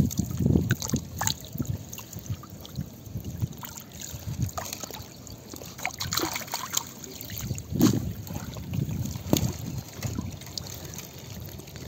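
Water trickling and dripping, with irregular small taps and knocks.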